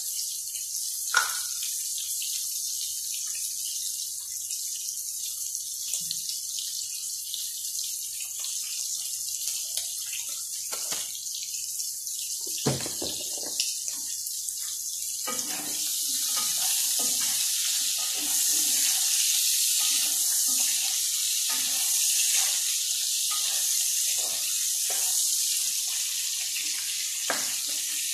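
Shrimps sizzling in hot oil in a frying pan, a steady hiss that grows louder about halfway through. There is a sharp click about a second in, and scattered knocks and scrapes in the second half as a spatula works the pan.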